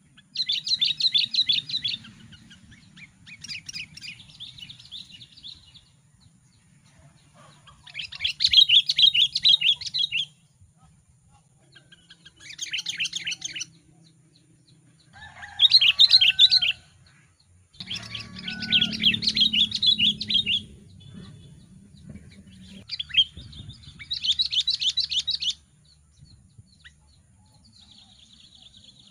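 Sooty-headed bulbul singing: about seven bursts of quick, high notes, each one to two seconds long, repeated with pauses of a few seconds between them.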